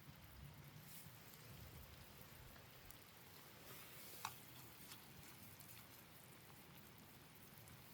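Very faint campfire crackle: scattered small ticks and one sharp pop a little past four seconds in, over a low steady hiss.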